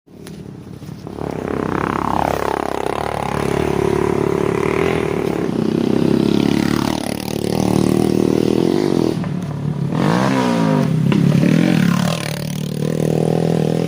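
Motorcycles riding past on a dirt trail, engines revving up and easing off several times as they go by.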